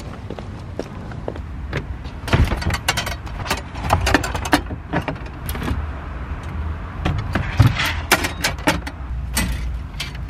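Thin metal wire sign stakes clinking and rattling against each other, with the clatter of corrugated-plastic yard signs, as they are handled and loaded into a car's cargo area. The clatters are irregular and start about two seconds in.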